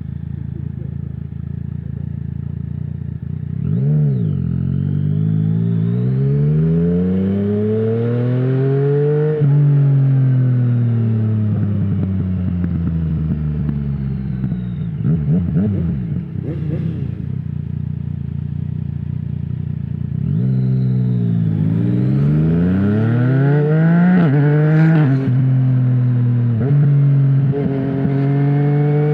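Yamaha MT-09's three-cylinder engine through a full Akrapovic exhaust with no dB killer, heard from the rider's position, revving hard as the bike accelerates and then falling away as the throttle closes. A few seconds of pops and crackles follow on the overrun. The bike then pulls hard again before the revs drop and settle.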